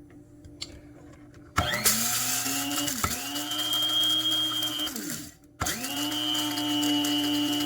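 Small electric blade coffee grinder grinding a teaspoon of flaxseed to powder. The motor spins up with a rising whine about a second and a half in and runs steadily for about three and a half seconds. It stops briefly, then starts again and runs on.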